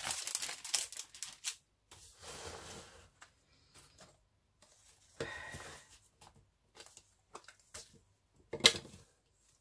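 Paper and a clear plastic sheet crinkling and rustling as they are handled on a craft table, with soft sliding scrapes of paper on the cutting mat. A single sharp click near the end as a plastic ink pad case is handled.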